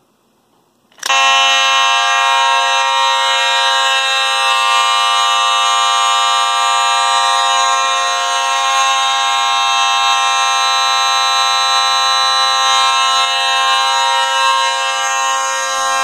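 Fire alarm horns sounding a steady, continuous tone, setting off about a second in once the pull station lever is pulled.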